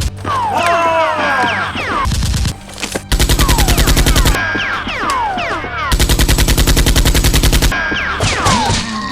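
Rapid automatic gunfire in two bursts of about ten shots a second, each lasting a little over a second, with falling whistling glides in between.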